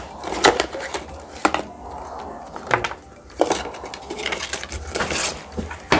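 Cardboard product box and its packed contents being handled and shaken out onto a table: several sharp knocks and rustles, about one a second.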